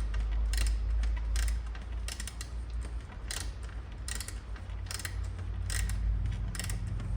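Ratchet wrench clicking in short bursts, about one a second, as it is swung back and forth on a tight bolt that has not yet given: the centre bolt of a Kawasaki ZX10R's rear hugger.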